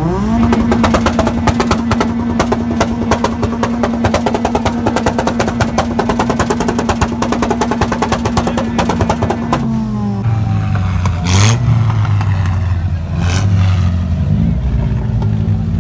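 Car engine revved up and held at high revs for about ten seconds with a rapid stutter, then let fall back to idle. Two sharp pops come as the revs drop.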